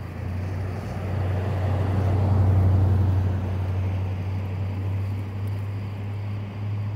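A steady low engine hum, swelling and fading as a motor vehicle passes about two to three seconds in.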